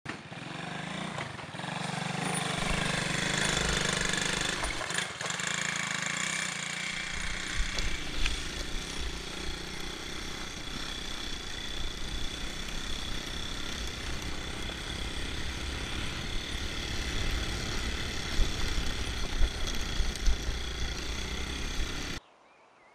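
Quad bike (ATV) engine running while riding over a rough dirt track, mixed with heavy wind rumble on the microphone. It cuts off abruptly near the end.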